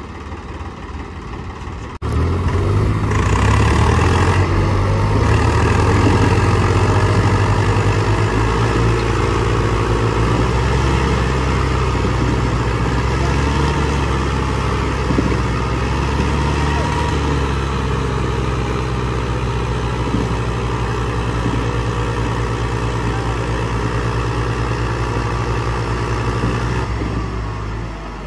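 Diesel engines of a Swaraj 855 and a New Holland tractor at full throttle, straining under heavy load as the two tractors pull against each other in a tug-of-war. The engine noise jumps up suddenly about two seconds in, stays loud and steady, and eases off near the end.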